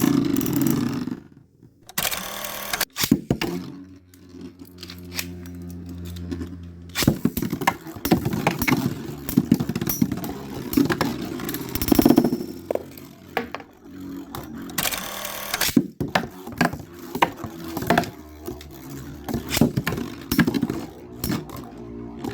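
Storm Pegasis and Thermal Pisces Beyblade tops spinning in a plastic stadium: a steady whirr, then rapid clicking and knocking as the tops collide again and again, with short loud scraping bursts near 3 s and 15 s.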